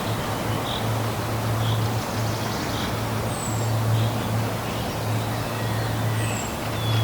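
Waterfall rushing steadily, with a low hum that swells and fades beneath it. Small bird chirps sound over the water: soft short calls and a thin falling note now and then.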